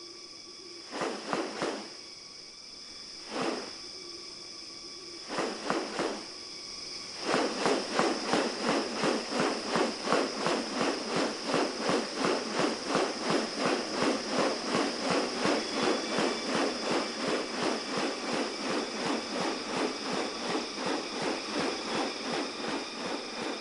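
Rainforest insects buzzing steadily on several high pitches. Over them come a few short noisy bursts, then from about 7 s in a long, louder run of rapid pulses, about three a second.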